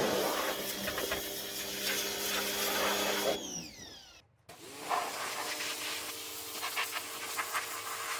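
Electric pressure washer running, a steady motor-and-pump whine over the hiss of the water spray. It winds down and stops about three and a half seconds in, then starts up again about a second later and runs on.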